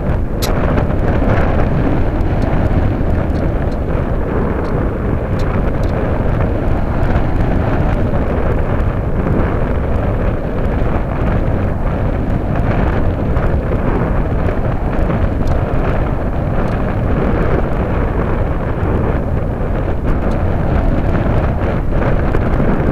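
Steady, loud rush of airflow buffeting the microphone of a keychain camera riding on a Radian powered glider in flight.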